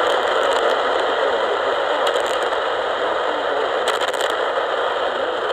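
Radio static: a steady hiss with faint crackles from a weakly received station, its audio buried in the noise.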